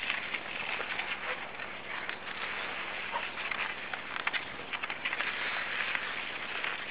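Skis sliding and crunching over packed snow, a continuous scraping hiss broken by many short, uneven crunches.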